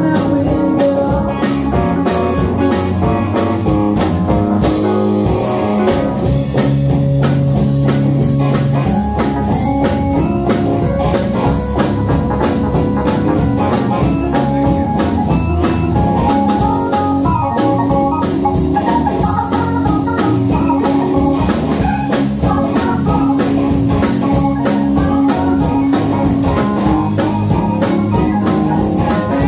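Live blues band playing an instrumental stretch: electric guitar, electric bass and drum kit keeping a steady beat, with organ chords held underneath.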